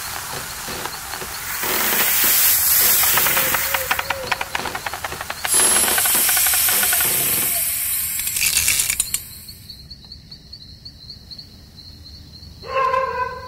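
Loud rattling hiss of snails sliding fast down a playground slide for about nine seconds. It then gives way to a quieter night background with a steady high insect trill, and a short wavering call comes near the end.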